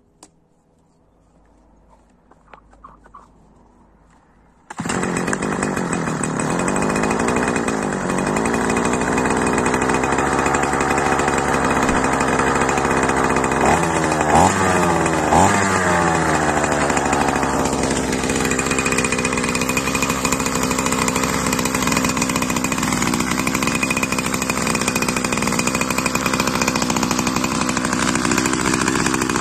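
Small two-stroke engine of a Chinese petrol brush cutter, started from cold. After a few quiet seconds it catches suddenly about five seconds in and runs steadily. It is revved in three quick blips around the middle, then its speed drops and it settles to a steady run.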